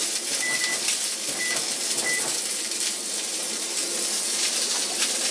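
Bacon-wrapped steak sizzling steadily in a cast iron skillet. Three short, high electronic beeps come from the oven's control panel in the first two seconds, as the oven timer is set.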